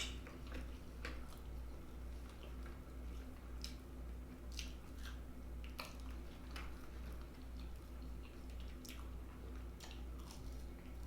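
A person chewing potato wedges close to the microphone, with irregular wet mouth clicks and smacks. A steady low hum runs underneath.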